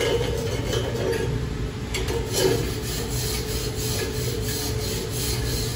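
Slag being scraped off a fresh 6010 stick weld bead on a steel T-joint with a hand cleaning tool, in quick repeated scraping strokes, about four a second in the second half.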